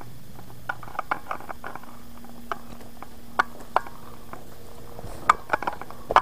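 Footsteps on a forest trail: irregular light crackles and snaps, growing busier about five seconds in.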